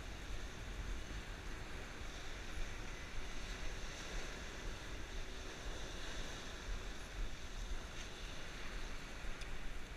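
Wind on the microphone, a steady low rumble, over the wash of surf on the beach, with a couple of faint clicks near the end.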